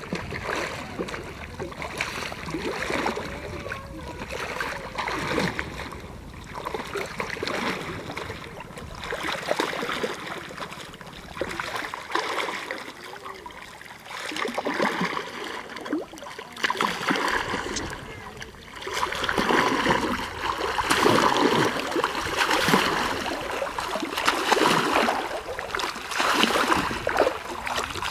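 Sea water splashing and sloshing in irregular surges every second or two as a snorkeler swims face-down at the surface, growing louder about two-thirds of the way through.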